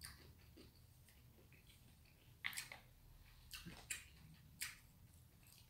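Near silence with about four faint, short clicks from someone eating with chopsticks out of a plastic lunchbox: small clicks and mouth sounds while chewing.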